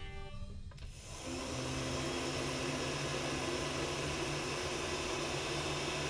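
Electric heat gun switched on about a second in and running steadily: the fan blows with a low motor hum underneath. It is heating heat-shrink tubing over a soldered connector.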